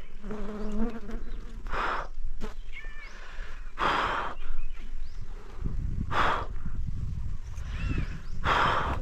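A man breathing hard: four heavy exhalations about two seconds apart, the climber's panting high in a tree, with bees buzzing around him.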